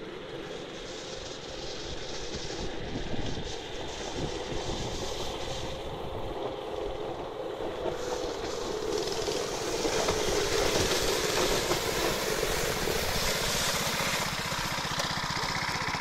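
A small petrol engine runs steadily, driving a rubber-tracked tow unit that pulls a sled, with the clatter of the track under it. It grows louder as the machine approaches, over the first ten seconds or so.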